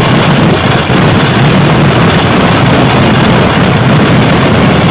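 Kerala festival fireworks (vedikkettu): a dense, continuous barrage of firecracker blasts so rapid that they merge into one constant din, overloading the recording.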